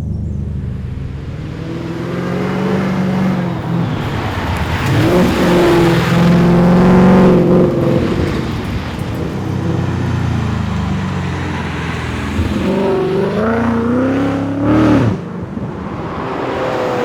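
Ford Mustang engine under hard acceleration, revving up and dropping back several times as it runs through gears, with a sudden drop in revs about fifteen seconds in.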